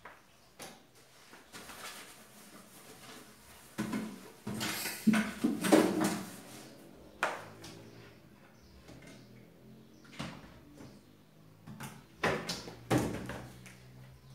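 Dishes and utensils knocking and clattering in a stainless-steel kitchen sink during washing up, with a kitchen cupboard door knocking. The clatter comes in irregular clusters, busiest about a third of the way in and again near the end.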